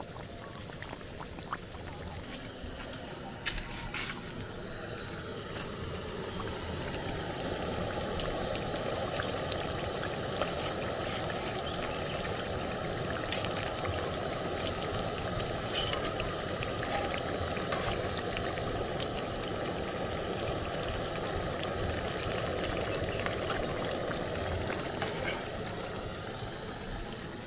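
Plantain fish pies deep-frying in hot oil in an aluminium pan, the oil bubbling and sizzling steadily. It grows louder over the first several seconds, then holds.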